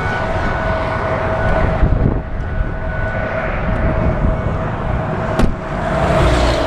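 Steady roadside vehicle noise with a constant mid-pitched hum, and one sharp click about five and a half seconds in.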